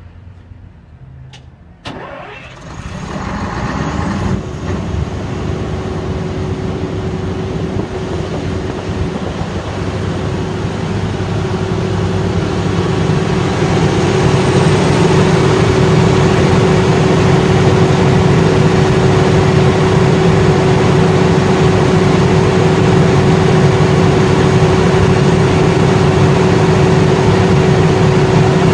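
Perkins diesel engine of a 500 kVA generator starting about two seconds in, then running up and settling into a steady run with a constant whine over the engine note.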